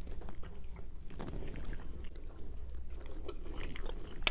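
A person chewing and biting breaded fried chicken close to the microphone, with small irregular crunches.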